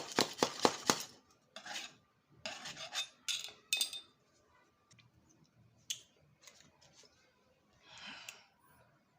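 Hand work on small parts: a quick run of scraping strokes, about ten a second, then a few separate scrapes and light clicks and knocks.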